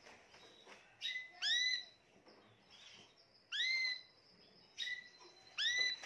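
Spanish Timbrado canary singing in three short phrases with pauses between, about a second in, near the middle and near the end. Each phrase is a clear note that sweeps up and levels off, the first and last led by a quick run of notes.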